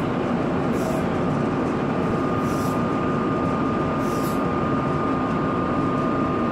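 Three short hissing puffs of aerosol smoke-detector test spray, fired at a ceiling smoke detector to set it off, over a loud, steady rumble and hum of ship's machinery.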